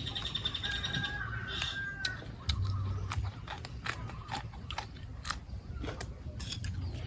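A person chewing and biting crunchy food: a run of sharp, irregular crunches from about two and a half seconds in. A bird calls in the first two seconds.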